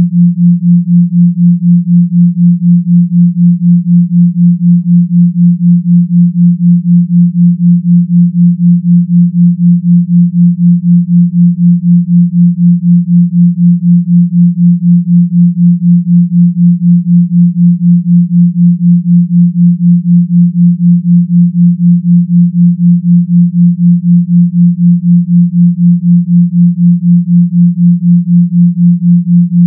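Binaural beat of two pure sine tones, 172 Hz and 176 Hz, heard together as one loud, low, steady hum that swells and fades about four times a second: the 4 Hz theta beat between the two tones.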